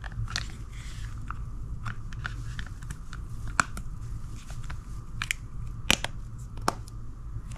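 Burga plastic phone case being pressed and snapped onto an iPhone: a run of small clicks and creaks, with three sharper snaps in the second half, the loudest about six seconds in.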